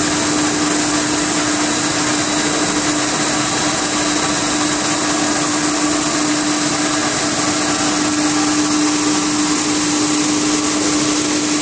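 Plastic film pelletizing line running: a steady, unchanging machinery hum with one constant tone under an even hiss.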